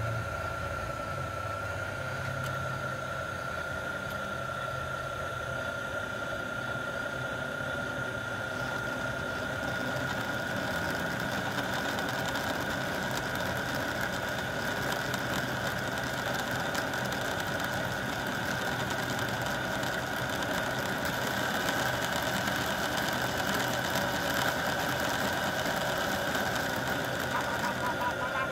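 O-gauge model diesel locomotive running slowly, its electric motor giving a steady high-pitched whine over the rumble of its wheels on the track.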